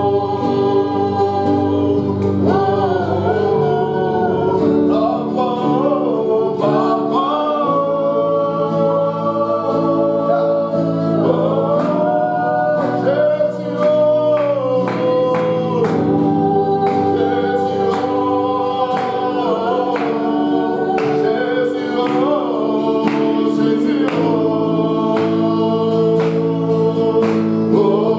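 Gospel worship music: voices singing a slow, drawn-out melody over held instrumental chords, with light regular percussion strikes.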